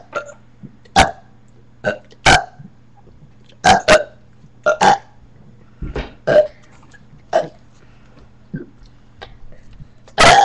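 A person burping over and over: a string of about a dozen short burps at uneven gaps, some coming in quick pairs.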